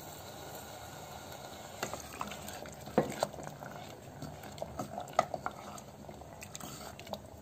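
A wooden spatula stirring rice, green peas and potatoes in water inside a pressure cooker pot: a soft watery swishing with scattered light knocks of the spatula against the pot.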